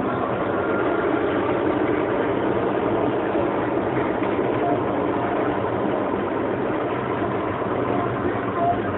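Hyundai i10 hatchback heard from inside the cabin while driving: steady engine and road noise.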